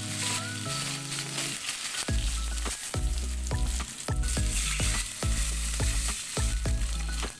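Chopped green onion and bok choy sizzling in hot oil in an aluminium pot as they are stirred with a spoon; water is poured in near the end. Background music with a steady beat plays alongside.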